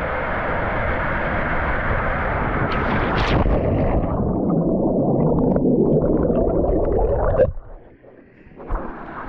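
Rushing, churning water with a low rumble that cuts off abruptly about seven and a half seconds in, leaving it much quieter.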